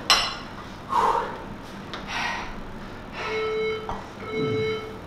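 Metal dumbbell plates clank once as the dumbbells are picked up off the floor. A workout interval timer then beeps twice, about a second apart, each a steady half-second tone, counting down the last seconds before the next set.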